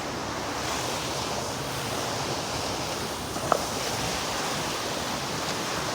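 Steady rushing of a waterfall, with one brief sharp sound about three and a half seconds in.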